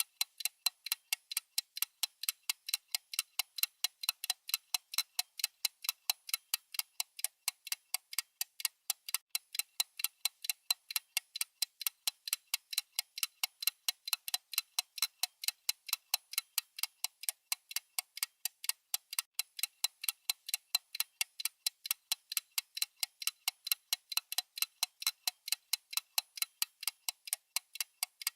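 A watch ticking close up: an even, steady train of sharp ticks, several a second.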